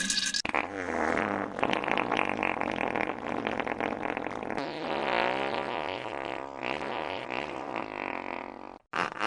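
A long, drawn-out fart sound effect from about half a second in, its pitch wobbling and wavering for some eight seconds before it tails off. Right at the end a quick run of short fart pops begins, about five a second.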